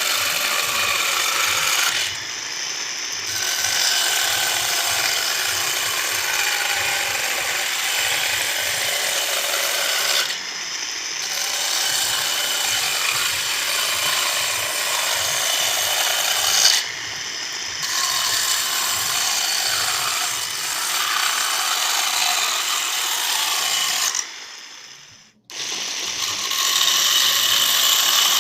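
Homemade mini chainsaw running and cutting into wood, a steady rasping power-tool noise. It dips briefly three times and cuts out almost completely near the end before starting again.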